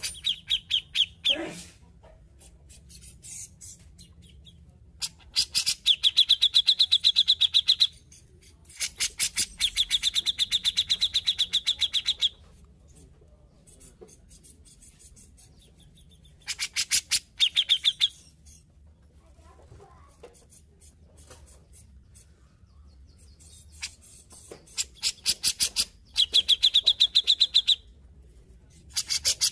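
Cucak jenggot (grey-cheeked bulbul) singing in loud bouts of fast, evenly repeated chattering notes, each bout lasting two to four seconds, about five times with short pauses between.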